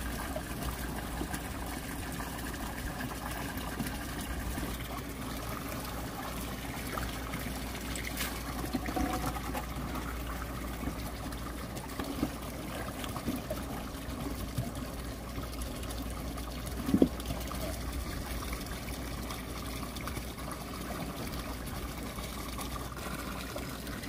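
Water running steadily through a concrete irrigation channel, trickling and splashing around the legs of a person wading in it. There is a brief sharper sound about seventeen seconds in.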